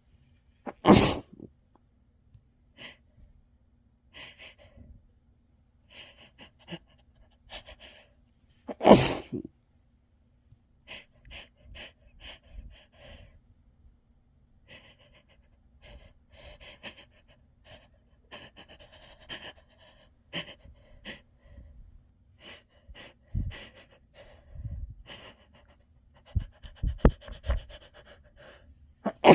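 A person sneezing into a tissue: two loud, muffled sneezes about a second in and about nine seconds in, another starting near the end, with quick panting and gasping breaths between them.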